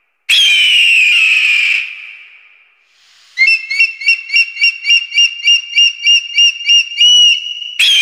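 Bird-of-prey calls: a long, high, falling scream, then after a short pause a fast run of about a dozen high piping notes, three or four a second, ending on a held note. Another scream begins right at the end.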